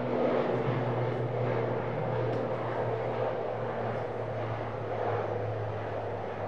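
Finnair ATR 72's twin turboprop engines climbing out after takeoff: a steady low propeller hum over a broad engine and air rush, fading slightly as the aircraft moves away.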